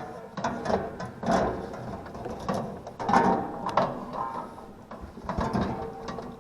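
A run of irregular metallic clicks and scrapes from hand tools working on the package unit's compressor, trying to pull off a stuck terminal plug that will not come free.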